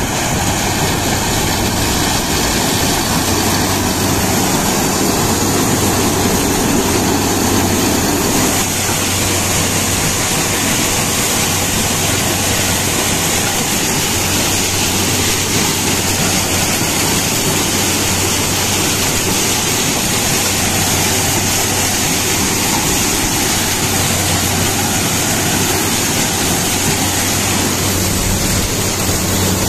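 Harvester machine running steadily: a loud, constant mechanical din with a steady engine hum underneath. The heavier lower rumble eases about eight seconds in.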